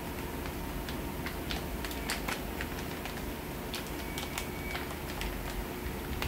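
Clear plastic bag crinkling in scattered short crackles as it is handled, over a steady faint hum.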